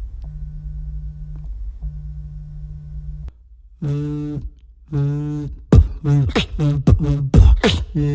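Three long, steady low tones over a rumble, then a beatboxer's mouth-made sound effects: drawn-out voiced tones and a quick string of sharp clicks with falling pitch.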